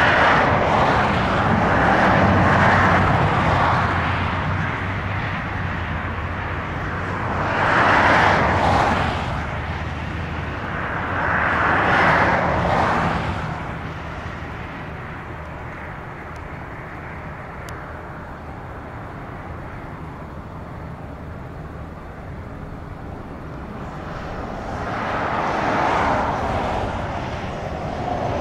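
Jet airliner engine noise, a steady rush with a low hum that swells loud several times and eases off in the middle.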